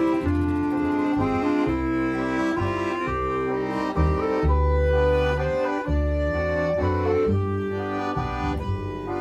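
Instrumental film score: sustained chords with a melody over a bass line that moves in steps.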